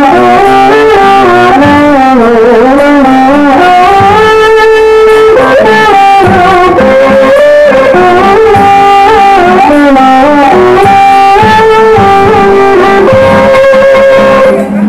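Loud instrumental music: a sliding, held melody over plucked strings, cutting off suddenly near the end.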